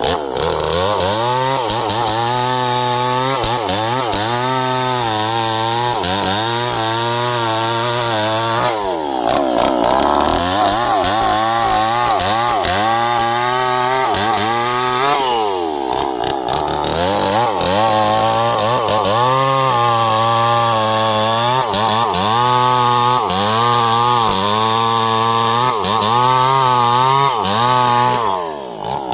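Chainsaw running at high revs while cutting sengon wood, its engine pitch wavering constantly as the chain loads and unloads in the cut. The revs drop and climb again about nine seconds in and again about fifteen seconds in, and fall away just before the end.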